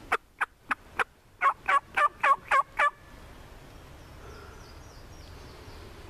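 Wild turkey calling: about five sharp clucks, then a loud run of six yelps about four a second, stopping about three seconds in.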